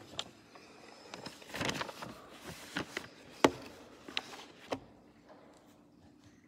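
Light knocks and clinks of items being handled and set down on an altar, about eight in the first five seconds, the loudest a sharp knock about three and a half seconds in.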